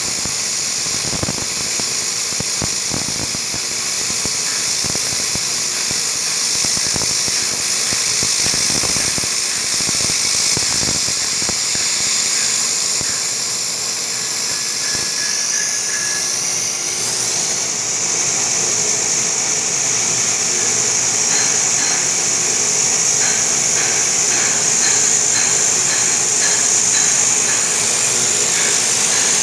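Romi Interact CNC milling machine spindle running at high speed and cutting, a steady high-pitched whine with irregular knocks from the cut in the first half. About halfway through the whine shifts pitch, then settles, with faint regular ticking near the end.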